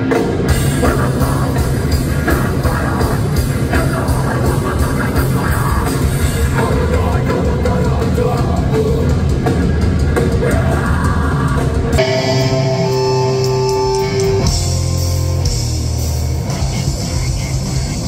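Loud live heavy metal band: distorted electric guitars, bass and drum kit through a festival PA. About twelve seconds in the sound cuts abruptly to another stretch of live rock, with a couple of seconds of sustained held notes before the full band returns.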